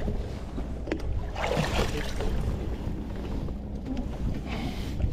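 Low steady wind rumble on the microphone aboard a fishing kayak, with a sharp click about a second in and two brief rustling, splashy swells of noise as a freshly landed fish is handled for measuring.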